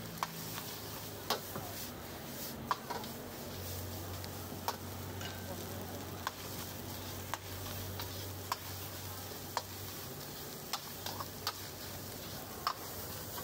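Wok stir-frying over a gas burner: a metal utensil clangs and scrapes against the wok about once a second over steady sizzling.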